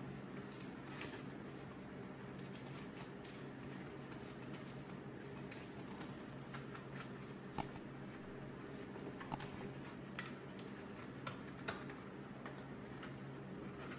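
Metal license plate being bent by hand around a cylindrical form held in a vise: scattered light metallic clicks and ticks, a few sharper, over a steady low hum.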